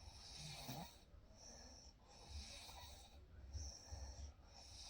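Quiet snoring breaths of a sleeping person, repeating in a regular rhythm with a soft hiss on each breath.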